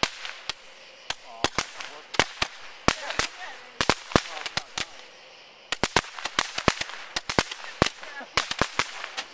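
Several handheld Roman candles firing at once, an irregular string of sharp pops with a short pause about five seconds in.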